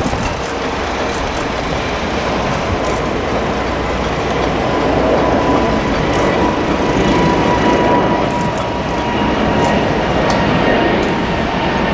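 Boeing 747-8F's four GEnx jet engines at takeoff thrust during climb-out: a steady jet engine rush that grows a little louder, with a faint steady whine coming in about halfway through.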